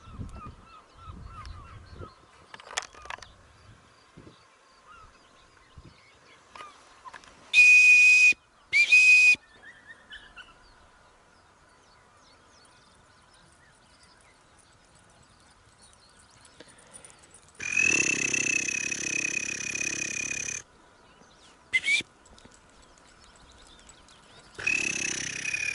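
A person whistling commands to gun dogs in place of a forgotten dog whistle, each one a steady high tone. There are two short whistles, then a long held one of about three seconds, then two more short ones.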